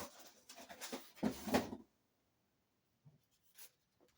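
Handling noises: a quick run of rustles and light knocks as packaging and objects are moved by hand, ending after about two seconds, followed by a couple of faint clicks.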